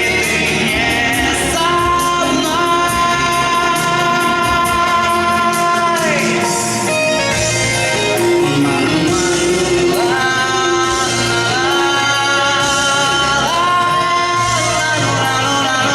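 A teenage male singer performing a pop song, holding long, wavering notes over an accompaniment with a steady beat.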